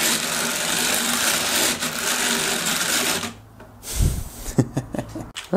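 3D-printed hand-cranked circular sock knitting machine being turned: the needles and cylinder make a steady mechanical clatter. The clatter stops about three seconds in, followed by a few low knocks and clicks.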